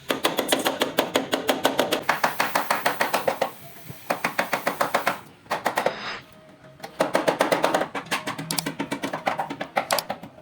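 Rapid hammer blows on steel, several a second, in three runs broken by short pauses.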